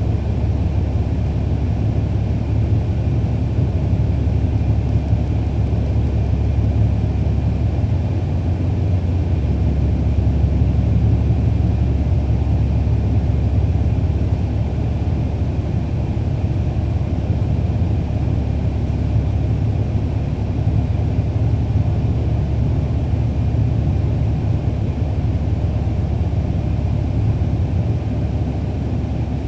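Cummins ISL9 diesel engine of a 2011 NABI 40-foot transit bus, heard from inside the bus as it drives: a steady low rumble mixed with road noise, a little louder about ten seconds in.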